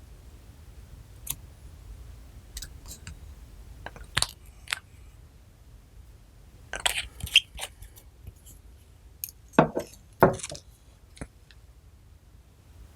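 Slime being handled and worked, making scattered, irregular crackles, clicks and squishes, with a busier cluster about seven seconds in and two louder squelching strokes around ten seconds in.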